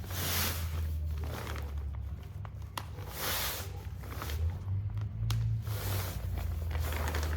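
Nylon inflatable sleeping pad rustling and crinkling in short bursts as it is folded and handled, with a few sharp clicks from its press-stud snaps. A steady low hum runs underneath.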